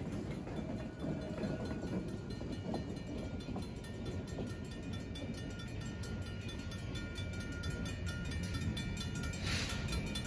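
Railroad crossing bell ringing in steady, evenly spaced strokes over the low rumble of an EMD SW1500 switcher locomotive passing over the crossing and moving off. A brief hiss comes near the end, as the crossing gates begin to rise.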